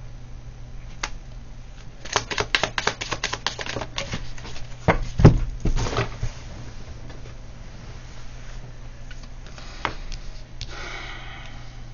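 A divination card deck being shuffled by hand: a rapid run of clicks for about two seconds, then a knock about five seconds in, the loudest sound, and a few scattered clicks after. A short rustle near the end.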